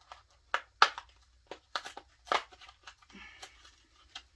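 A battery pack's plastic packaging being torn and pried open by hand: an irregular run of sharp crackles and snaps.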